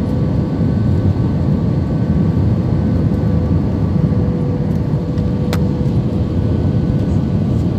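Airliner cabin noise on approach to landing: a steady, loud rumble of engines and airflow past the fuselage with a constant hum. A single click sounds about five and a half seconds in.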